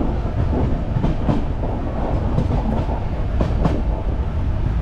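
Indian Railways sleeper-class coach running at speed, heard inside at an open barred window: a steady low rumble of the wheels on the rails with several irregular clicks from the track joints.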